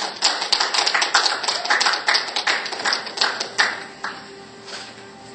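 Applause from many people clapping, dense and irregular, dying away about three and a half seconds in.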